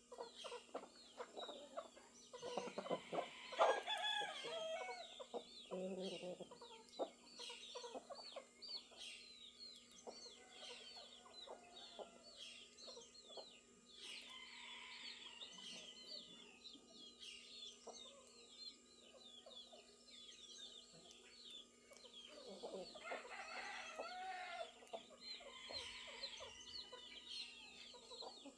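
Farmyard chickens clucking and a rooster crowing, loudest a few seconds in and again near the end, over constant rapid chirping of small birds.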